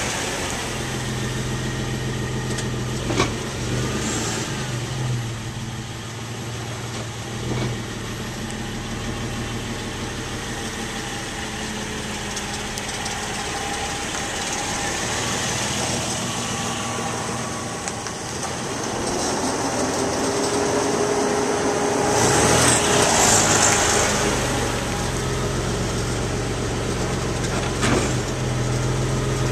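2001 Suzuki XL-7's V6 engine running in park, idling and given light throttle for a few seconds past the middle, with a few short clicks. This is the kind of low-throttle running at which the owner hears an unexplained creaking noise that grows more obvious as the engine warms.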